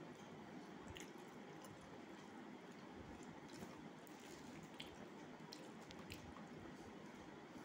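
Faint squishing of cooked rice being mixed and squeezed by hand on a steel plate, with a few soft clicks over a low steady hiss.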